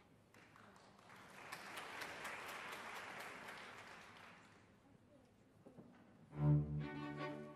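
Audience applause that swells and then dies away over about four seconds. About six seconds in, the orchestra starts playing with loud, low bowed-string notes.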